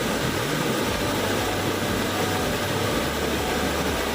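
Water rushing down a tiered waterfall: a steady, even rush of noise.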